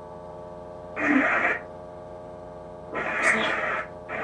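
Ghost-box app (Necrophonic) playing through a small speaker: two short bursts of garbled, radio-like noise, about two seconds apart, over a steady hum.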